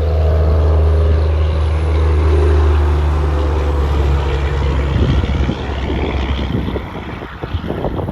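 Semi truck's diesel engine running loud as it passes, a deep steady drone whose pitch sags slightly over about five seconds, then giving way to rushing tyre and wind noise.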